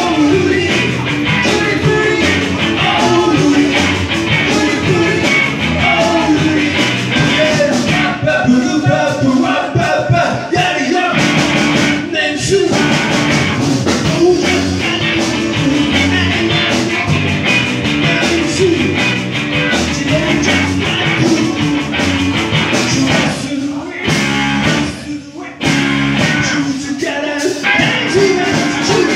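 A rock band playing live: electric guitars, bass guitar and drums, with a man singing lead. The band briefly drops out near the end, then comes back in.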